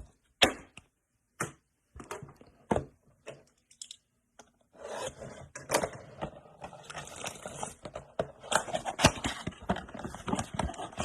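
Trading-card packaging being handled on a table: a few separate clicks and taps, then, from about five seconds in, steady crinkling and scraping as card packs and box cardboard are handled and opened.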